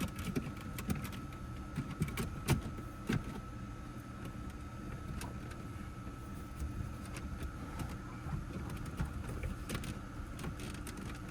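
Scattered clicks and knocks of plastic trim and parts being handled as a car's steering column area is put back together, most of them in the first three seconds and a few more near the end, over a steady low hum with a faint high tone.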